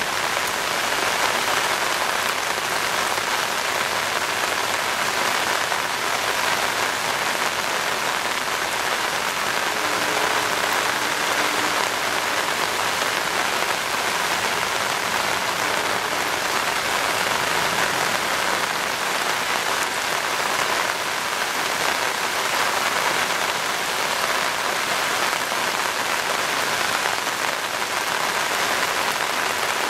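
Heavy rain pouring steadily, drumming on an umbrella held over the camera.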